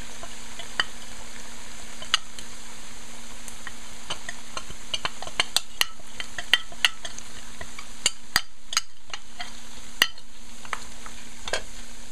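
Mutton frying down in oil in a pot: a steady sizzle with many sharp crackles and pops, thickest around the middle, as wet blended masala is spooned into the hot meat.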